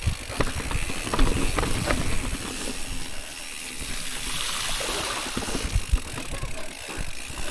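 Mountain bike being ridden on a dirt trail: a steady rush of tyre and wind noise with scattered knocks and rattles from the bike over rough ground.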